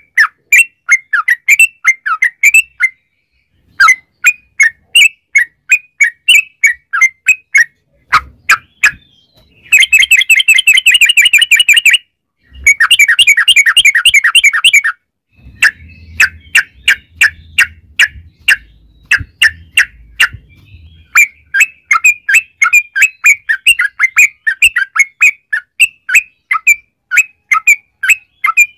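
Yellow-vented bulbul (trucukan) singing fast, repeated chattering notes in runs, with two stretches of very rapid trilling in the middle: the long, rolling "ropel" song used to provoke other trucukan into singing.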